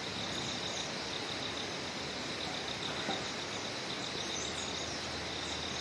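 Steady high, pulsing insect trill over a faint even background hiss.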